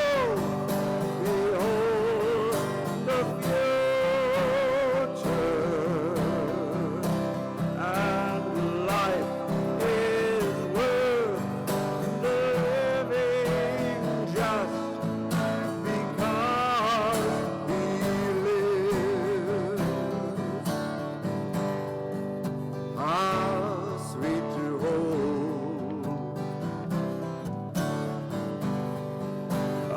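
Slow, gentle music with guitar accompaniment under a wavering vibrato melody line.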